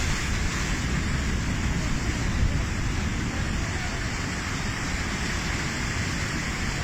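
Steady rush of rough, heavy sea and wind, with wind rumbling on the microphone.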